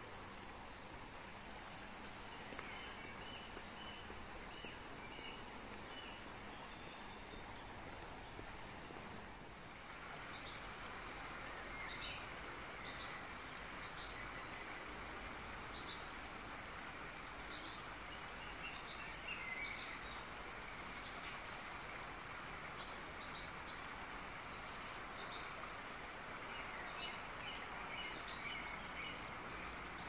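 Wild birds singing and calling, short high chirps repeating throughout. They sit over a steady hiss of outdoor background noise that gets louder about ten seconds in.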